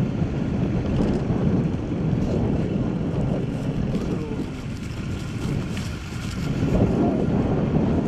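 Wind buffeting the microphone: a steady, loud low rumble that dips slightly and swells again near the end, with faint voices under it.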